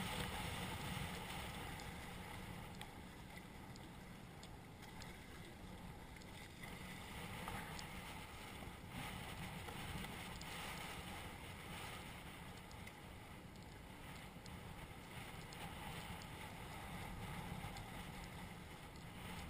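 Hobie Cat catamaran under sail: a steady rush of wind on the microphone and water washing along the hull, with a deep rumble underneath.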